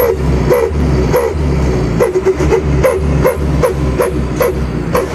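A dog barking repeatedly, about two short barks a second, over a steady low hum.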